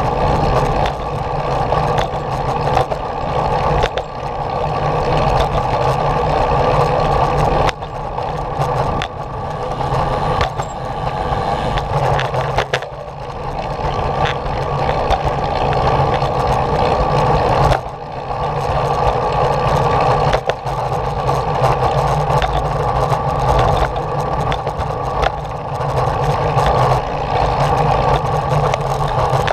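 Steady mechanical drone of a small vehicle being ridden along a paved path, dipping briefly about three times.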